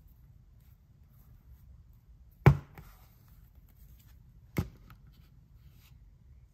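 A plastic action figure knocked down onto a tabletop twice, two sharp knocks about two seconds apart, the first louder.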